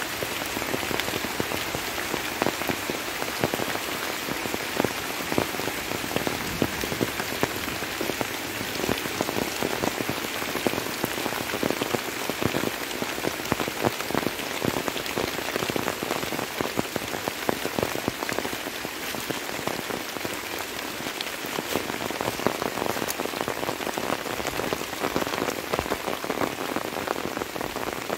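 Steady light rain, with a dense, even hiss of countless small drop impacts close by.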